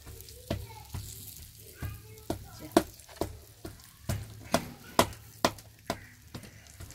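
Hot melted desi ghee poured into wheat flour in an aluminium karahi, sizzling faintly. Over it runs a steady series of sharp clicks, about two a second.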